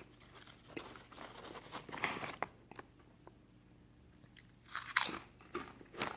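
A person chewing crisp potato chips: irregular crunches, a quieter pause in the middle, then a few louder crunches near the end.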